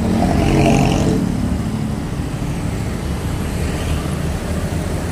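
A motor vehicle passing close by on the road, its engine loudest about a second in and fading, leaving a steady traffic rumble.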